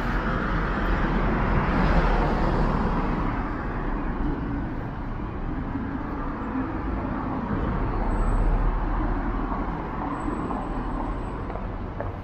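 City street ambience: a steady hum of road traffic, with vehicles passing and the noise swelling about two seconds in and again around eight seconds in.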